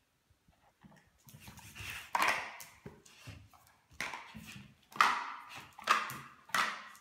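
American Staffordshire Terrier puppy playing with a dried chew ear on a tile floor: a run of sharp slaps and scuffles as the ear and paws hit the tiles, about five loud ones starting two seconds in.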